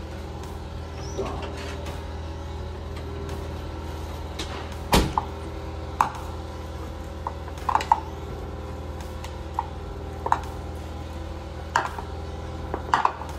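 Spreader knocking and scraping against a ceramic bowl while mixing stiff cream cheese and shredded cheddar, in scattered sharp clicks, the loudest about five seconds in.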